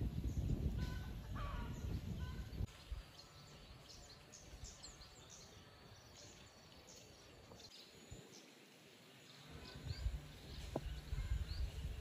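Munias calling with many short, thin high chirps in quick succession among the rice. A low rumble of wind on the microphone covers the first few seconds and comes back near the end.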